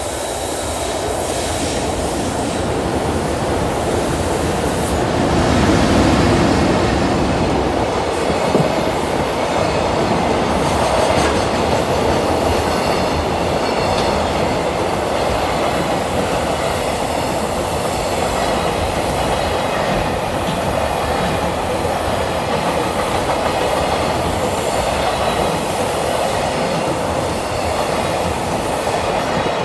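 Container freight train hauled by an EH500 electric locomotive passing close by: a long steady run of wagons clattering over the rail joints, with some wheel squeal, loudest about six seconds in.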